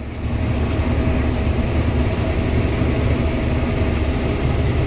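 New Holland TR96 combine running while threshing barley: a steady low mechanical drone with a faint steady hum above it, heard from inside the cab.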